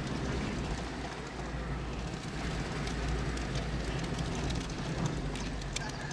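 Car driving, its engine and road rumble heard from inside the cabin, steady and low, with scattered light clicks and rattles.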